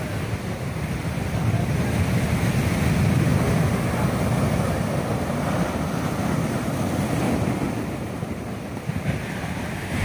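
Rough storm sea: heavy surf breaking and washing up the shore, swelling to its loudest about three seconds in and then slowly easing, with wind buffeting the microphone.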